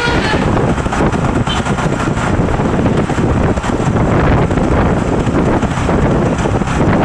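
A bus going by: a loud, steady rush of engine and road noise with wind buffeting the microphone. The pitched notes of its telolet horn break off right at the start.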